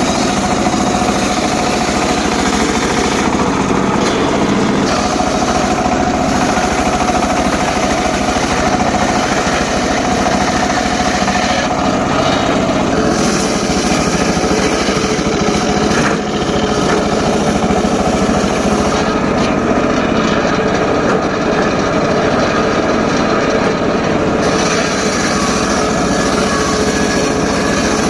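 A homemade circular saw rig running steadily at high speed while it cuts short pieces of teak wood. The sound is loud and continuous, with a brief dip about halfway through.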